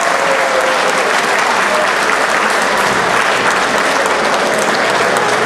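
Audience applauding, a steady patter of many hands clapping, with a few voices mixed in.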